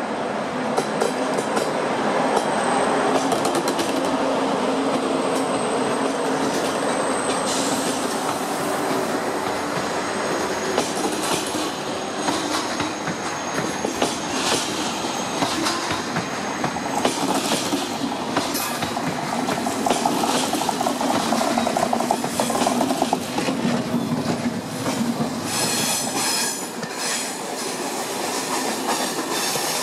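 Passenger trains rolling slowly through a curved station throat: a TGV and a locomotive-hauled TER train. Thin, high wheel squeal comes from the curve, over a steady rumble and clatter of wheels over points and rail joints. The clicking gets quicker and closer near the end as the TER coaches pass right by.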